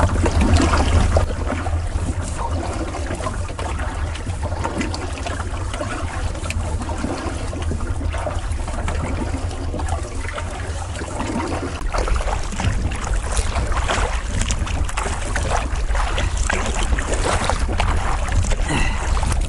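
Kayak paddle strokes splashing and dripping in choppy lake water, with a steady wind rumble on the microphone.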